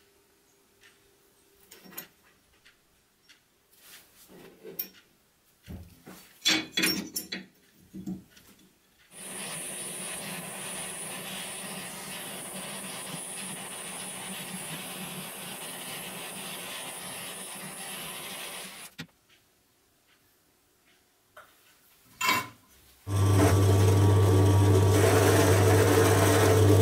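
Small clicks and knocks of brass parts being handled, then a gas torch flame hissing steadily for about ten seconds while brass is soldered. About 23 seconds in, a bench drill press starts, and its motor runs with a loud, steady hum.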